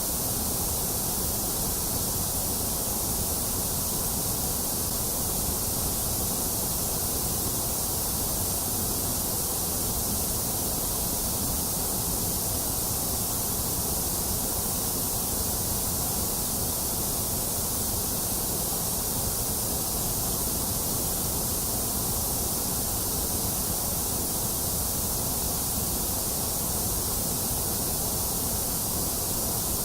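Steady electronic white noise: an even, unchanging hiss, somewhat thinner in the upper middle range.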